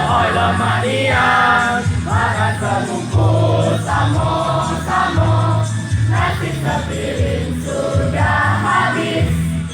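A choir singing in parts with low accompaniment, phrases rising and breaking every second or so.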